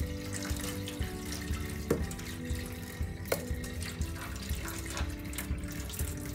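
Tap water running into a stainless steel sink, then rinse water and washed rice poured from a pot into a wire-mesh strainer, the water splashing and draining into the sink. There are two sharp metal knocks a little past the middle.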